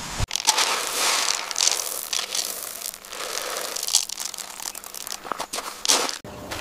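Crinkling and rustling with sharp crackles, starting abruptly just after the start and cutting off abruptly near the end.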